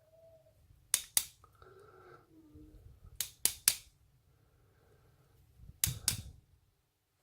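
Three pairs of sharp clicks, a couple of seconds apart, as the small pins, drivers and springs of a disassembled Euro cylinder lock are handled with tools.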